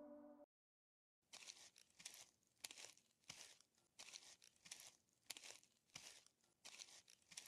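Faint, even back-and-forth strokes of a rubber eraser rubbing on paper, about one and a half strokes a second, starting a second or so in after a gong's ringing cuts off.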